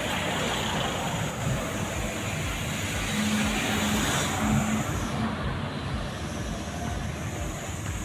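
Road traffic passing on a city street: a steady wash of tyre and engine noise with a low engine hum.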